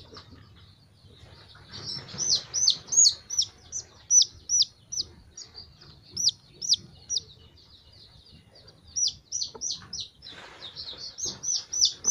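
Young domestic chicks peeping: quick runs of shrill, downward-sliding peeps that come in bursts with short pauses, over a soft rustle of a chick being handled.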